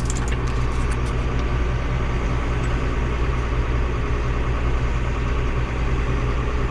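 John Deere 7800 tractor's six-cylinder diesel engine running steadily while it pulls a loaded grain cart, with a few faint clicks in the first second.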